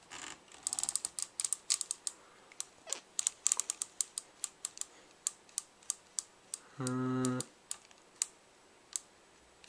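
Buttons on the back of a camera speedlite flash clicking as they are pressed, first in quick flurries and then in single presses about two to three a second, while the flash is set to manual mode and full power. A short steady tone sounds once, about seven seconds in.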